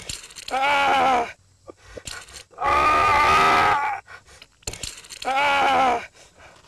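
A wounded man crying out in pain: three long, wavering moans, each about a second long, a second or two apart.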